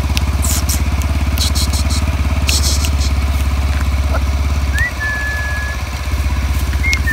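Small scooter engine idling close by, steady, with an even pulsing beat. It dips briefly about five seconds in. A thin high held whine sounds twice over it in the second half.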